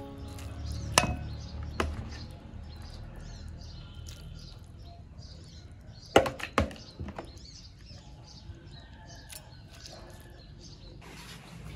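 Metal spoon clinking against a ceramic bowl while tossing shredded green mango salad: two sharp clicks in the first two seconds and three more in quick succession about six seconds in. Birds chirp in the background.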